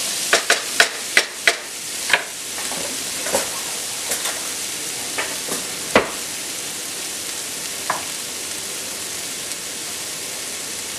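Onions and chopped tomatoes sizzling steadily in a frying pan while a wooden spatula stirs and knocks against the pan: a quick run of knocks in the first second and a half, then a few scattered ones, the sharpest about six seconds in.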